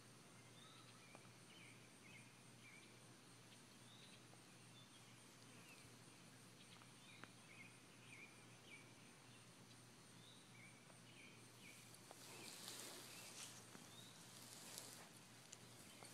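Faint outdoor ambience with short high bird chirps repeating throughout. Some rustling comes in about three-quarters of the way through.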